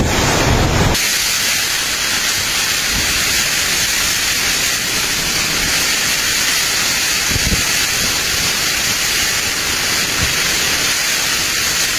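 Torrential typhoon rain pouring down in a loud, steady hiss, with wind gusts giving a few low rumbles. The sound shifts about a second in as the footage cuts to a second clip of the same downpour.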